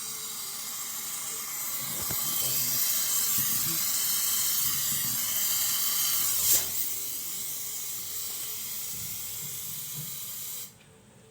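Gas torch flame hissing steadily while the leak in a refrigerator's punctured tubing is brazed. It grows louder about two seconds in, gives a short sharp pop around six and a half seconds, and cuts off suddenly near the end as the torch is shut off.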